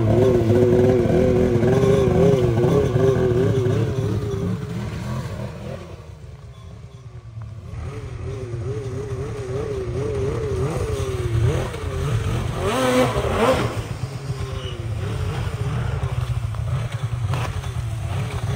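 Polaris 9R snowmobile's two-stroke engine running through a freshly fitted aftermarket exhaust can, its pitch rising and falling as it is ridden. It fades about six seconds in as the sled moves away, then comes back with a sharp rev about twelve seconds in.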